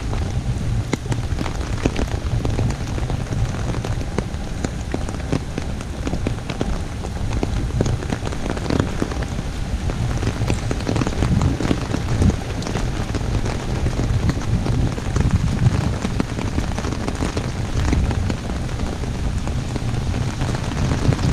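Heavy rain falling steadily on an umbrella held overhead: a dense mix of single drop hits over a steady rush of rain.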